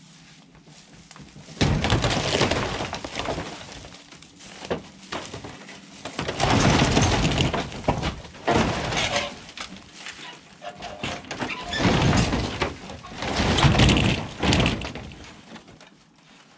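A collapsed porch roof of rusted corrugated tin sheets on old wooden framing grinding, creaking and crashing as it is pushed over, in several loud spells of metal scraping and breaking wood with short pauses between, until it settles flat near the end.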